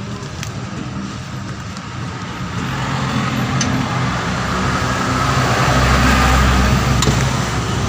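A motor vehicle engine running, growing louder about three seconds in and loudest with a deep rumble around six seconds, then easing a little.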